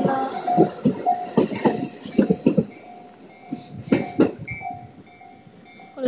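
Tobu electric commuter train passing close by: a rushing hiss with wheels clacking over the rail joints, dying away about three seconds in as the last cars go by. A repeating ringing tone sounds through it.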